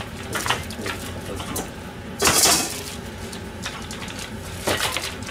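Dishes and utensils being put away at a kitchen sink: scattered clinks and knocks of crockery and cutlery, with a short, louder hissing burst about two seconds in.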